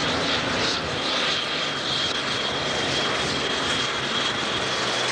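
Super stock pulling tractor's turbocharged diesel engine running at full power under load, pulling the weight sled down the track. A steady high whistle rides over the engine noise from about a second in.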